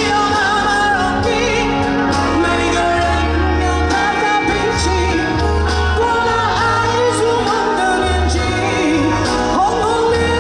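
Live pop ballad: a woman singing over a band, with a steady pulsing bass line.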